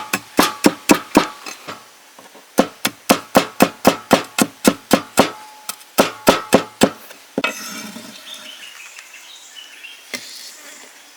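A knife chopping rapidly on a wooden cutting board, about four to five strokes a second in three runs, stopping about seven seconds in. A softer, longer noise follows, with insects and birds faintly behind it.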